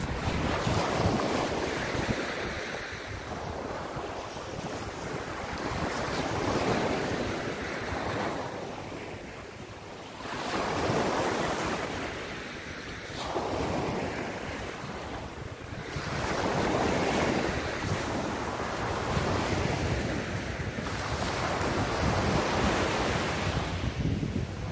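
Small surf waves breaking and washing up a sandy beach, the noise swelling and fading every few seconds, with wind buffeting the microphone.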